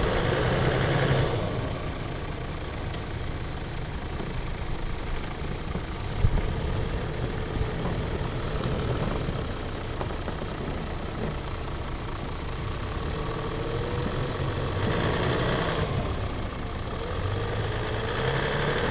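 Toyota Land Cruiser 100's 4.2-litre diesel engine running as it tries to pull out of deep wet snow. The engine noise surges louder in the first second and again about three-quarters of the way through, and there is a single sharp knock about six seconds in.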